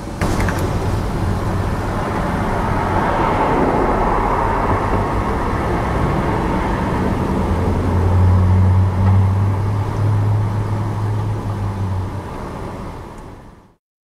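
City street traffic: steady road noise of cars with a low engine hum that grows louder about eight seconds in, then fades out near the end.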